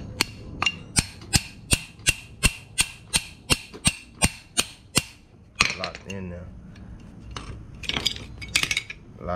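Ratchet wrench clicking in a steady rhythm, about three clicks a second for some five seconds, as the nut on a new tie rod end is tightened. Then a few brief bursts of handling noise.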